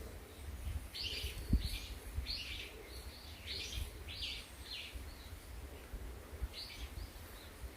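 A small bird calling a string of short, high chirps, one every half second or so, with a brief pause before the last few. A low rumble runs underneath.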